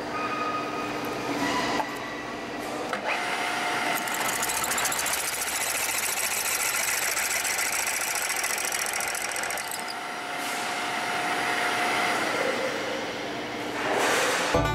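Pillar drill press running, its twist bit cutting into a steel workpiece clamped in a machine vise. The cutting noise sets in a few seconds in and goes on for about eight seconds, with a short break midway, over the steady hum of the drill's motor.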